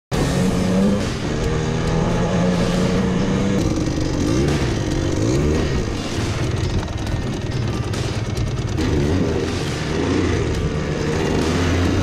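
Kawasaki KDX200SR single-cylinder two-stroke dirt bike engine running and revving as it is ridden, its pitch rising and falling several times and changing abruptly twice.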